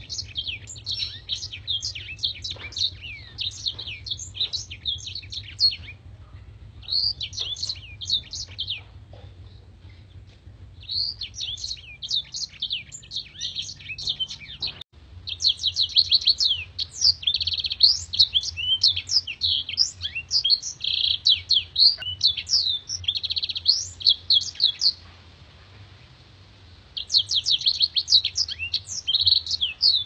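Caged black-throated canary (blackthroat) singing: long, fast runs of high, sharp twittering notes in bursts of several seconds, separated by short pauses.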